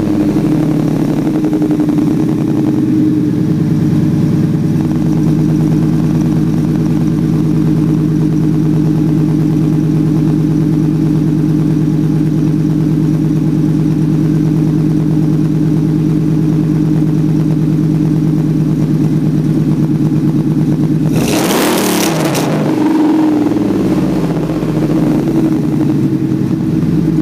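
2001 Ford Lightning's supercharged 5.4-litre V8 idling steadily through shorty headers, off-road mid-pipes and a Bassani cat-back exhaust. About three-quarters of the way through it is revved once briefly and drops back to idle.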